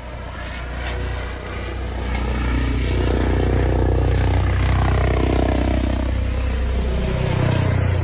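Airbus H160 helicopter flying low overhead: steady rotor and engine noise that grows louder about two seconds in, its pitch falling as the helicopter passes over.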